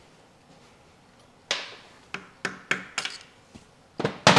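A run of sharp metal clinks and knocks, about eight or nine, starting about a second and a half in and loudest near the end: hand tools and engine parts being picked up and set down on a workbench.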